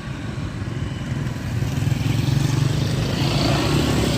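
An engine running steadily with a low rumble, growing louder about two seconds in.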